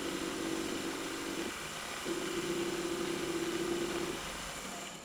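Milling machine spindle running a three-flute countersink bit that is chamfering the edge of a large hole in an aluminium bar. It makes a steady hum over cutting noise, which breaks off briefly about a second and a half in, then resumes.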